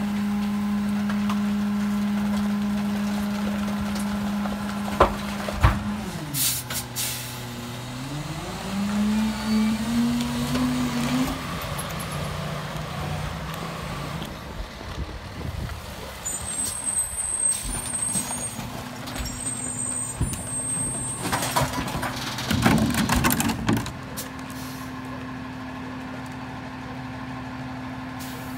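Freightliner M2106 garbage truck's diesel engine held at raised revs, the way it runs the Heil Durapack 5000 rear loader's packer. The revs drop about six seconds in and then climb back up. A couple of sharp bangs come around five seconds in, and loud air-brake hisses come about two-thirds of the way through.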